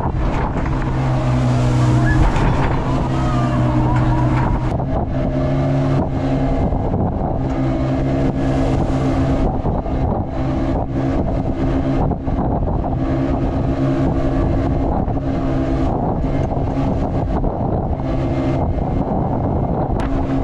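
Passenger motorboat's engine running steadily at speed, with water rushing and splashing along the hull.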